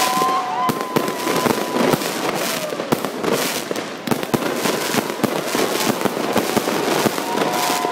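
Fireworks cake firing shells in quick succession: a dense, unbroken run of pops and crackling bursts.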